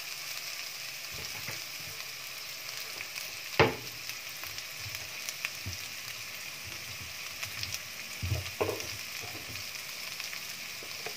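Sliced shallots and garlic sizzling steadily in hot oil in a wok, with a wooden spatula stirring. The spatula knocks sharply against the pan once about a third of the way in, and scrapes and taps again a little past two-thirds through.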